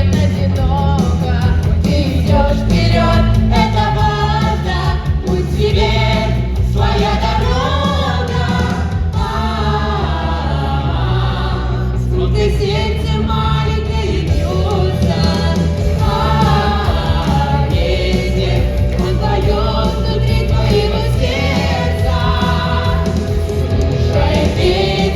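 Music: a song with several voices singing, possibly a choir, over a strong, steady bass line.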